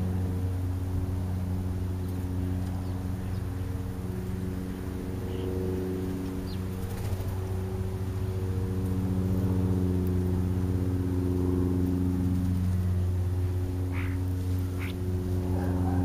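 Steady low machine hum, like an engine idling, holding one pitch with a slow swell and fade. A few short high bird chirps come near the end.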